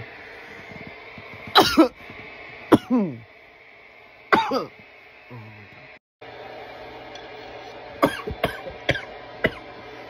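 A man coughing hard from bong smoke: a few harsh coughs spaced a second or more apart, a brief dropout, then a quicker run of short coughs near the end.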